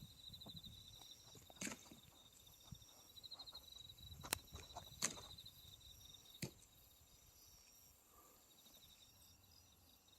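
Faint insect trilling in short pulsed bursts, high-pitched and cricket-like, coming and going, with a few sharp faint clicks.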